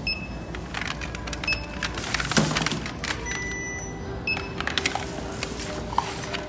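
Handheld barcode scanner at a checkout beeping three times, short and high-pitched, as items are scanned, with a longer electronic tone about halfway through. Plastic jars and small packages clatter and knock on the counter throughout.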